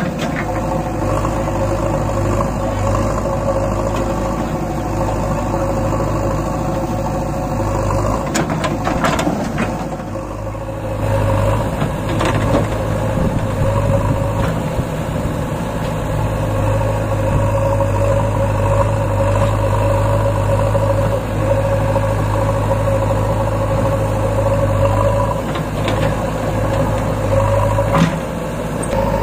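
Diesel engines of a JCB backhoe loader and a Swaraj 744 FE tractor running steadily while the backhoe loads soil into the tractor's trolley, with a few brief knocks about a third of the way in and again near the end.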